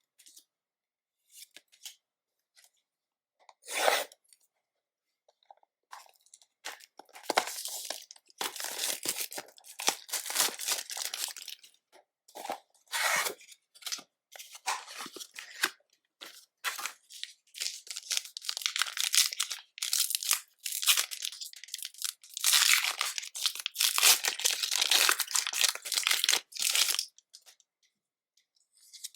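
Foil Pokémon booster pack wrappers and plastic packaging being torn open and crinkled: a single sharp rip, then long stretches of dense crackling and crumpling as the packs are handled.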